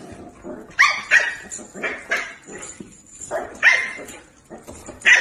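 A dog barking: a string of short, high-pitched barks with brief gaps between them.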